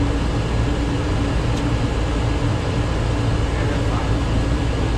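Steady rushing noise and low rumble inside the flight deck of a Boeing 737-800 on approach to landing: the airflow and engine noise of the airliner in flight, with a faint steady hum.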